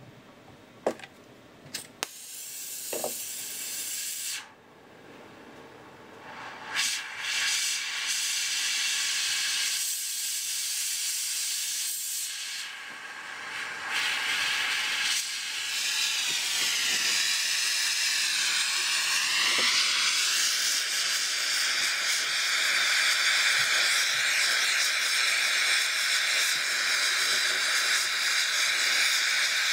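MAP gas and oxygen torch hissing. A few sharp clicks come first; the gas hiss cuts out about four seconds in and starts again, wavers in pitch for a few seconds midway, then settles into a steady, louder hiss as the flame heats a crucible of scrap sterling silver for melting.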